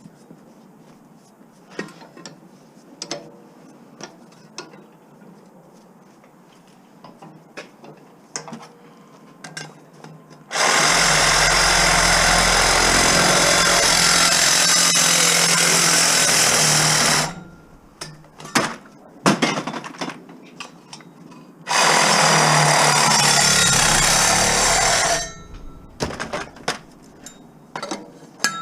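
A power tool running hard in two bursts, about seven seconds and then about three seconds long, with light metal clinks and knocks of scrap being handled before, between and after.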